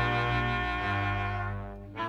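Closing music: held orchestral chords, the harmony changing about a second in and fading toward the end.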